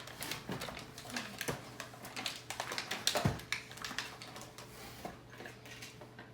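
Doll packaging being opened and handled: irregular crinkling, clicking and snapping of box and wrapping, busiest and loudest around the middle.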